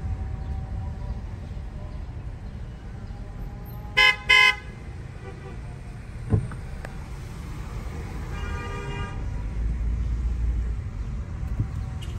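Car horn honked in two short, loud toots about four seconds in, over the steady low rumble of slow-moving traffic. A fainter, longer horn note sounds a few seconds later.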